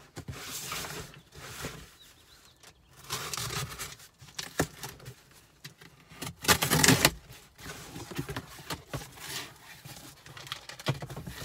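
Packing tape being slit and ripped off a cardboard box, with cardboard rustling as the flaps are pulled open; the loudest rip comes about six and a half seconds in.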